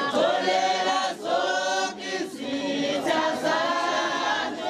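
A crowd singing together unaccompanied, many voices in chorus, with short breaks between phrases about a second and two seconds in.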